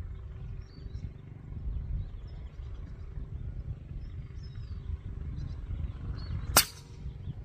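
Air Venturi Avenger .22 PCP air rifle firing a single shot, one sharp crack about six and a half seconds in, over steady wind buffeting the microphone.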